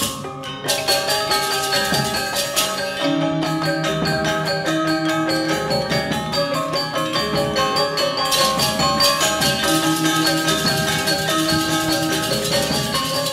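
Music led by tuned mallet percussion: many quick, even strikes over held low notes that come in about three seconds in.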